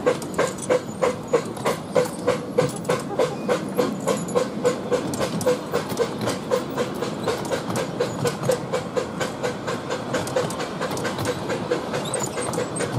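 10¼-inch gauge miniature railway coaches rolling past on the track, a steady rumble with a regular click about three times a second that grows less distinct as the train draws away.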